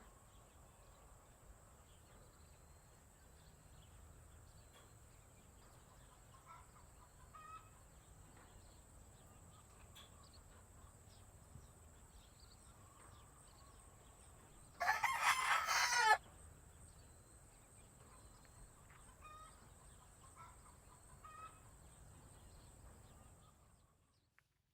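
A rooster crows once, loudly, about fifteen seconds in. Around it are faint, scattered clucks and chirps over a steady high-pitched whine.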